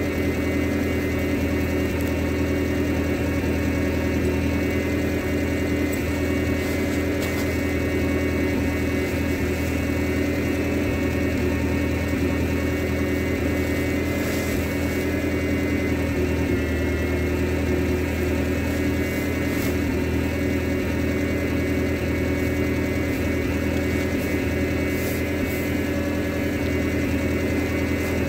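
Skid steer engine idling steadily, with a few faint scrapes of the bale's net wrap being cut.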